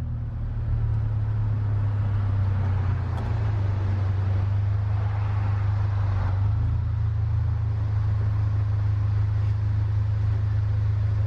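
Car running, a steady low drone with a rushing noise over it.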